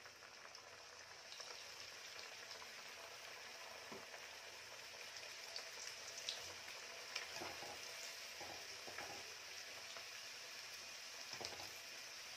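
A samosa deep-frying in hot oil in a kadai: a faint, steady sizzle with scattered small crackles.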